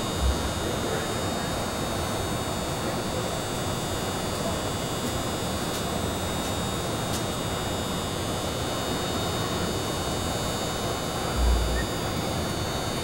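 Steady indoor-arena background noise with a faint electrical hum and indistinct murmur. A dull low thump comes just after the start and another about a second and a half before the end.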